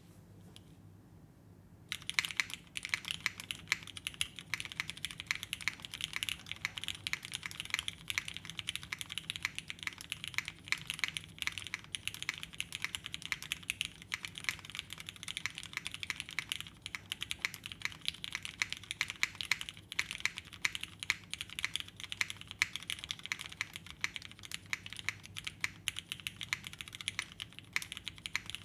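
Fast, continuous typing on a V01.65 mechanical keyboard with lubed Cherry retooled switches, an aluminum plate and GMK keycaps, starting about two seconds in.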